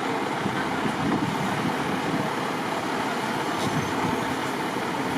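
Strong wind buffeting the microphone: a steady rushing noise with an uneven low rumble.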